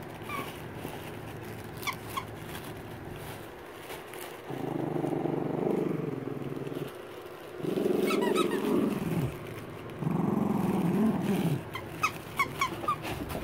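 Dog growling in play while tugging a plush toy: three long low growls in the second half, with a few short high squeaks before and after.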